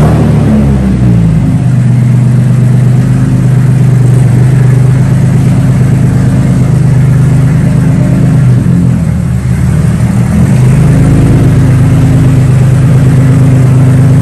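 Datsun 280Z engine running loud through a freshly welded straight-pipe exhaust with a small resonator, mostly at a steady idle. The revs fall back to idle just after the start, and dip and pick up again about nine to ten seconds in.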